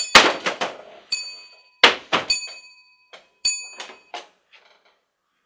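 Old telephone being handled: a run of knocks and clunks as it is passed over and held, with its bell giving several short dings about a second apart.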